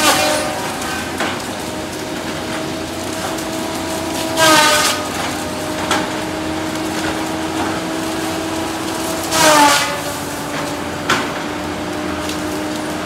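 Cat 573C feller buncher running with a steady pitched drone. About every five seconds the sound swells and its pitch dips briefly as the saw head loads up cutting a tree, and there is a single sharp tick near the end.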